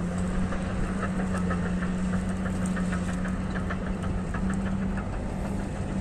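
Heavy diesel engine of earth-moving equipment idling steadily, a low even hum with a fast, light ticking running over it.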